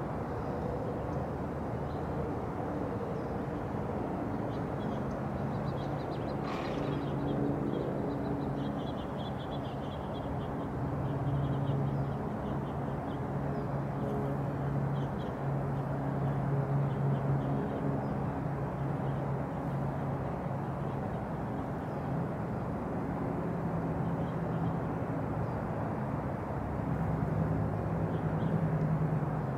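Outdoor ambience: a steady low drone of distant engines that swells a few times, with small birds chirping faintly now and then and one sharp click about six and a half seconds in.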